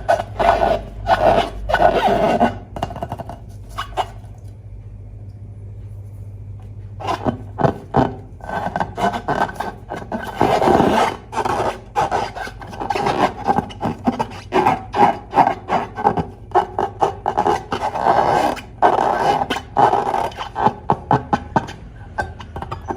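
Hands rubbing and squeezing rubber balloons: a run of squeaky rubbing scrapes and short clicks, stopping for a few seconds about four seconds in and then resuming.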